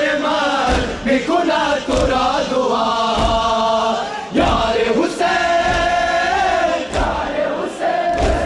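A group of men chanting a Muharram noha together in a crowd, with the thuds of matam (rhythmic chest-beating) landing every second or so.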